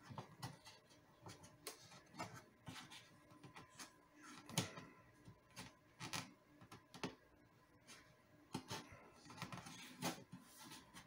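Quiet handling noise from hands pressing a freshly super-glued joint on an acoustic guitar together: faint scattered clicks and light taps, with one sharper tap about four and a half seconds in.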